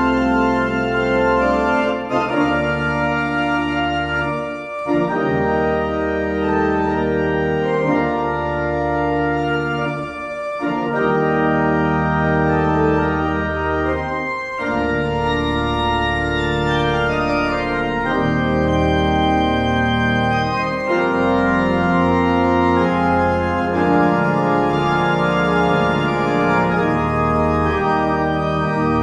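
Pipe organ playing full sustained chords over long held bass notes. The chords change every few seconds, with brief breaks between phrases.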